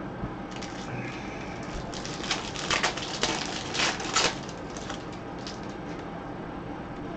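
Foil wrapper of a baseball card pack crinkling and tearing as it is ripped open, a cluster of sharp crackles starting about two seconds in and lasting a couple of seconds.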